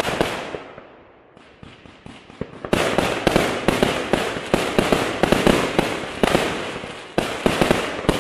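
Aerial fireworks bursting. A fading burst and a short lull with a few small pops give way, about three seconds in, to a rapid barrage of sharp bangs and crackles that keeps going.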